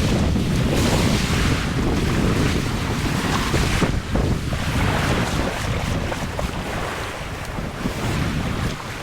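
Wind buffeting the microphone: a loud, uneven low rushing that swells and eases.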